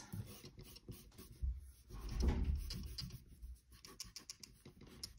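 Rubber eraser scrubbing back and forth on paper, rubbing out pencil guidelines and construction lines. It makes many quick short strokes, with a heavier, duller stretch of scrubbing about two seconds in.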